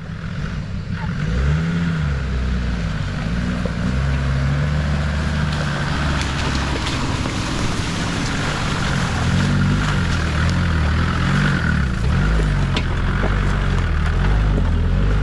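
Off-road 4x4 engine running under load, its note rising and falling with the throttle as the vehicle drives along a rough lane, with a few faint knocks.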